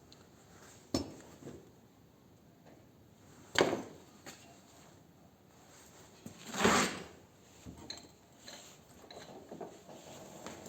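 Sparse metallic clinks and knocks from steel parts and tools being handled and struck, with three sharper hits, the loudest about two-thirds of the way through, and lighter clatter between them.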